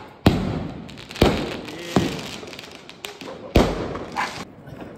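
Firecrackers going off: four sharp bangs at uneven intervals, the third weaker, each trailing off in an echo.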